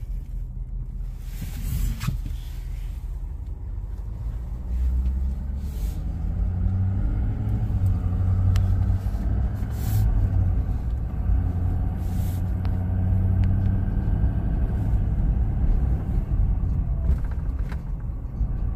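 Ford pickup truck driving on a snow-covered road, its engine and tyres making a steady low rumble inside the cab. It grows louder about five seconds in as the engine picks up, with a few faint clicks.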